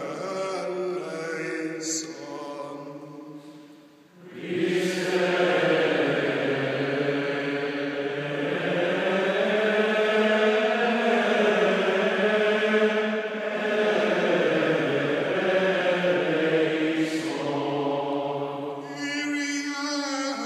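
Men's voices singing a liturgical chant together, softer at first, then fuller and louder from about four seconds in as more voices carry the melody.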